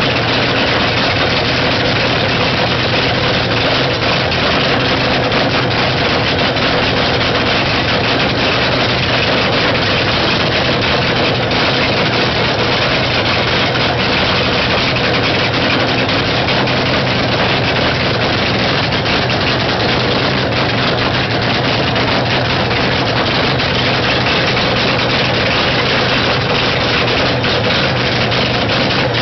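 Supercharged V8 drag-racing funny car engine idling on open zoomie headers, a loud, steady cackle.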